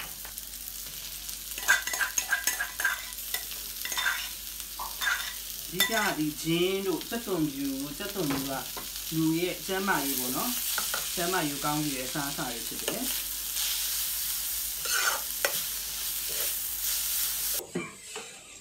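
Sliced onions and garlic sizzling in oil in an aluminium wok while a metal ladle stirs and scrapes the pan with frequent clicks. A wavering pitched sound, like humming, comes in through the middle. The sizzle stops abruptly near the end.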